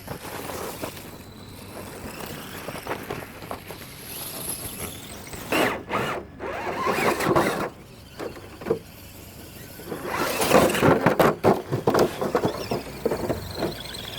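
Radio-controlled rock crawler's electric motor and drivetrain whining in short throttle bursts, the pitch wavering up and down, with two louder stretches about a third of the way in and again near three quarters.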